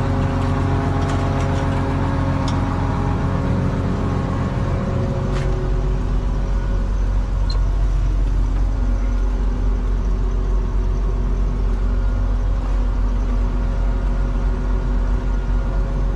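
Case IH 2388 combine's diesel engine running steadily, a constant deep hum with a few light clicks in the first seconds. About five seconds in the higher noise drops away, leaving a deeper, more muffled hum.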